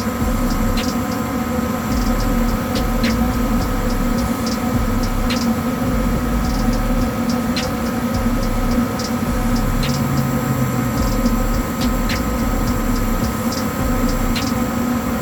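Goodman gas furnace running with a steady mechanical hum during start-up, as it waits for the blower motor to kick in. Faint, irregular ticks come about once a second.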